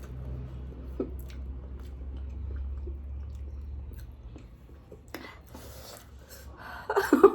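A person chewing food with small mouth sounds and a few short clicks, over a steady low hum.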